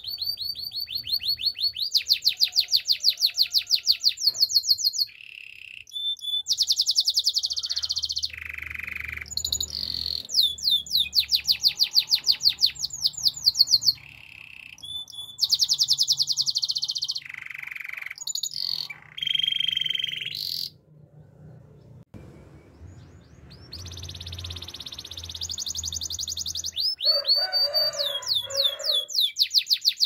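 Domestic canary singing: long, high-pitched rolls of rapid repeated notes, with short breaks between phrases and a pause of about two seconds about two-thirds of the way through.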